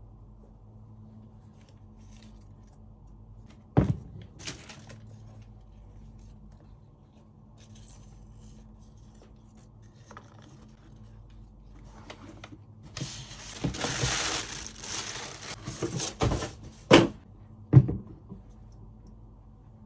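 Handling noise: paper packaging rustling and crinkling for a few seconds about two-thirds of the way through. There is a sharp knock about four seconds in and three more knocks near the end.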